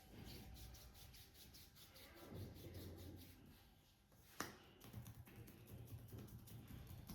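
Faint, quick rhythmic rubbing strokes of a hand back massage on skin, with one sharp click about four seconds in.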